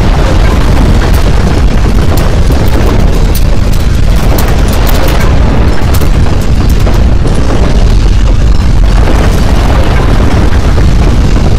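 Earthquake shaking sound: a loud, continuous deep rumble with scattered crackles and rattles on top.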